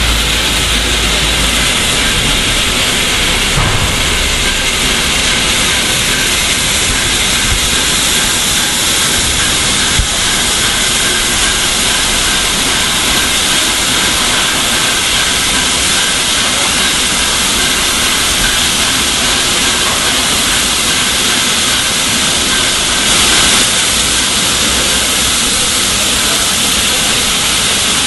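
Steam hissing steadily and loudly from an LNER A4 Pacific steam locomotive, No. 4464, as it moves slowly through a station.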